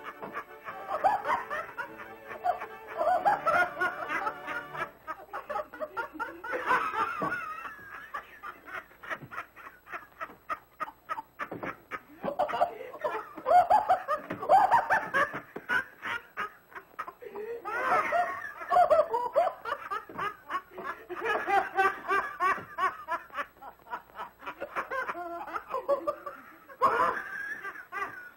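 Two men laughing uncontrollably in long, repeated fits. Around the middle the laughter breaks into a quick run of short, choppy laughs.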